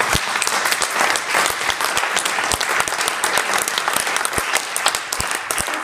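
Audience applauding: many people clapping together in a steady, dense patter.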